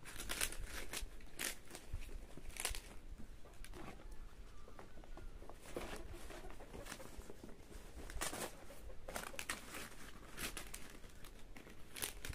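Large fresh green leaves crinkling and rustling in irregular handfuls as they are folded and tucked over a basket of soybeans, wrapping them to ferment into kinema.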